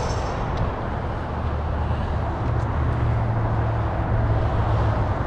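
Wind rumbling over a bike-mounted action camera's microphone while riding, with tyre noise on the path underneath; a steady low rumble.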